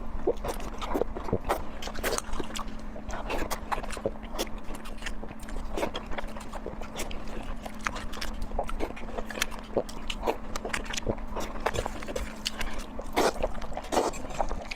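Close-miked chewing and mouth sounds while eating: irregular wet clicks and smacks, with a steady low hum underneath.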